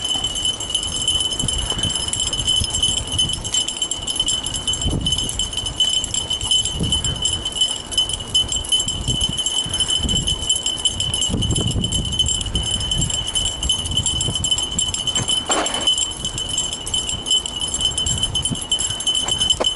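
Kickbike rolling fast on an asphalt trail: uneven rumble of the tyres on the road and wind buffeting the microphone, under a steady high-pitched whine.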